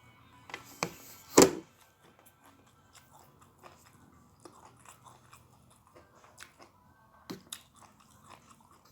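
A person chewing crunchy food close to the microphone, with a loud sharp crunch about a second and a half in and small crackling crunches throughout.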